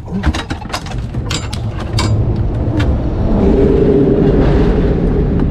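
A few knocks and clicks, then a boat motor running from about two seconds in: a steady drone that grows louder and settles into an even hum.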